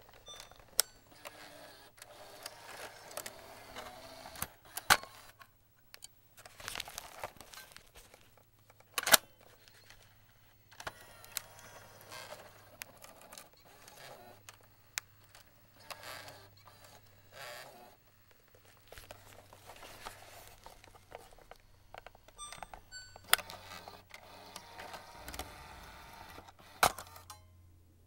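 Cassette tape being handled: plastic rattling and scraping with a series of sharp plastic clicks, the loudest about nine seconds in, over a low steady hum.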